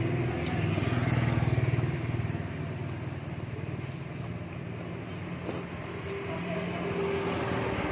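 A motor vehicle engine running as it passes, loudest in the first two seconds and then fading to a lower hum, with a few faint clicks.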